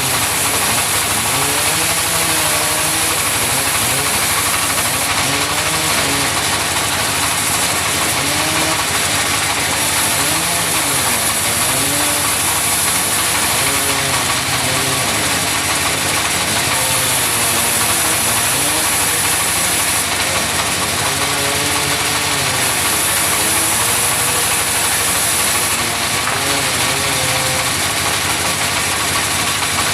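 Sawmill saw running and cutting wood. The machine's pitch wavers up and down, and a high hiss comes and goes every few seconds.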